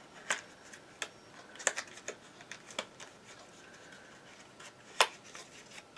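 Scattered light clicks and taps of a makeup brush travel set's packaging being handled and opened, about six in all, the loudest about five seconds in.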